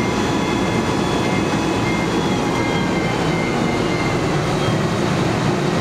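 Fire engine's diesel engine running steadily at close range while it supplies charged hose lines, with faint steady high-pitched whines over the engine noise.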